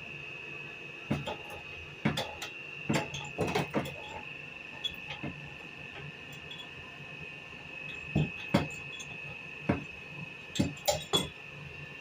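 Irregular sharp knocks and taps, about a dozen, some in quick pairs or clusters, over a steady high-pitched tone.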